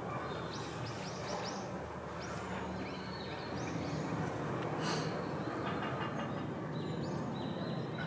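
Small birds giving short, high chirps in scattered clusters, over a steady low background rumble.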